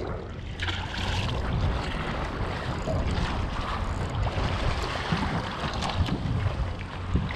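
Wind on the microphone and water washing around a boat at sea, a steady rushing noise with no distinct knocks or engine tone.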